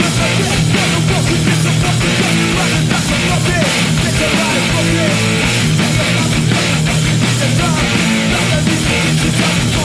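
A hardcore punk band playing live and loud, with distorted electric guitars, bass and pounding drums filling the room without a break.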